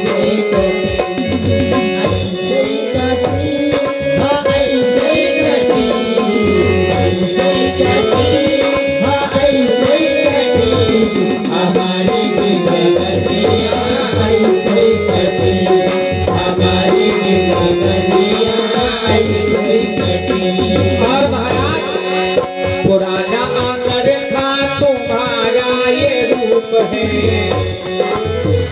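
Live folk-song music: a hand drum such as a tabla keeps a steady beat with rattling percussion under a wavering melody line, without a break.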